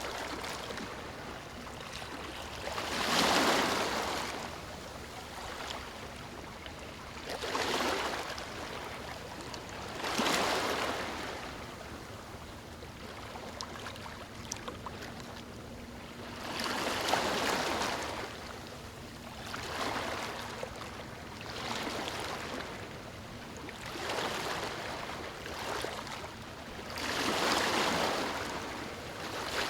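Ocean surf on a sandy beach: waves break and wash in one after another every few seconds, each a rush of water that swells and fades, over a steady background wash.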